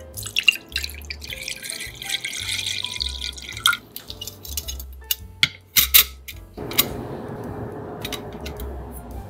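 Water poured into a rice cooker's inner pot for about three and a half seconds. Then a few clinks as a perforated steamer plate is set in the pot, and a soft rubbing as a mesh steamer mat is pressed flat by hand. Quiet background music plays underneath.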